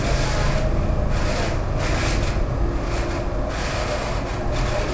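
Old tram running along its track, heard on board: a steady low rumble from the wheels and motors, with a rubbing, scraping noise of steel wheels on the rails that rises and falls.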